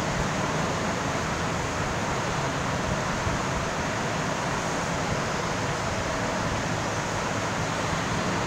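Steady rushing background noise with a low hum underneath, unchanging throughout.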